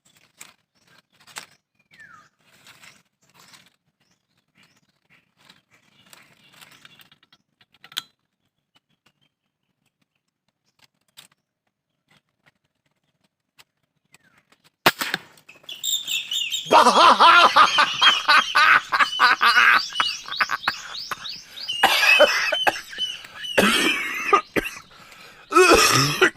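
Faint scattered clicks and rustles, then from about two-thirds in a loud run of wavering, warbling bird calls close by.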